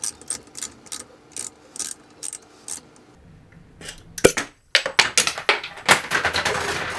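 Metal grease gun being unscrewed in a bench vise: light metallic clicks about two or three a second, then a sharp metal snap a little after four seconds and a loud run of rattling and clattering metal.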